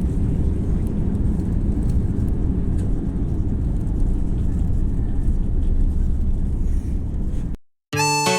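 Steady, loud low rumble of a jet airliner heard from inside the cabin, engine and airflow noise, that cuts off abruptly near the end.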